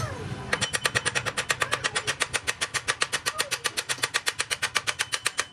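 Rapid, evenly spaced mechanical clicking, about ten clicks a second, starting about half a second in and keeping a steady pace.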